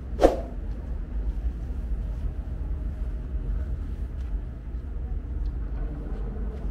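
A short falling whoosh sound effect about a quarter second in, as an on-screen subscribe animation disappears, then a steady low rumble of background noise in a large underground salt-mine hall with faint scattered ticks.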